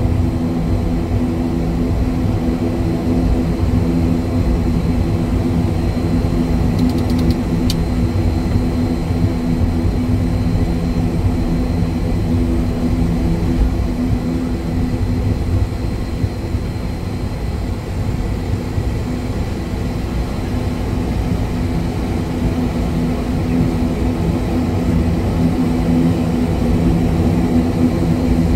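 Twin turboprop engines and propellers of an ATR 72-500 running steadily, heard inside the cockpit as a drone with a steady low hum of several tones. A few faint clicks come about seven seconds in.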